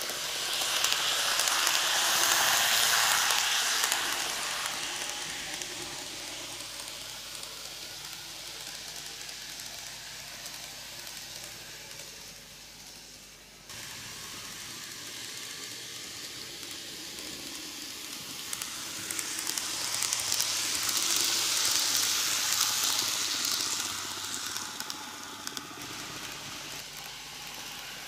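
N gauge model electric train running on the track out of view: a hissing whirr of its motor and wheels on the rails that swells and fades twice as the train passes, broken by a sudden cut about halfway through.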